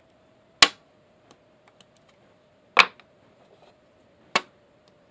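Three sharp clicks, about two seconds and then one and a half seconds apart, with a few faint ticks between them, as 18650 lithium cells are handled and held to multimeter probes on a metal plate. A faint steady hum sits underneath.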